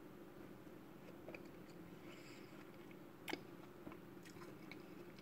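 Faint chewing of a crisp apple slice, with scattered small crunches and one louder click about three seconds in.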